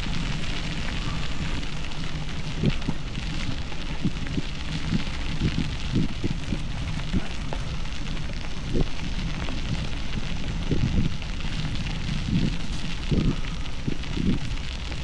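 Bicycle tyres crunching over a gravel trail while riding, with irregular knocks and rattles from the bike over bumps and a steady low rumble of wind on the camera's microphone.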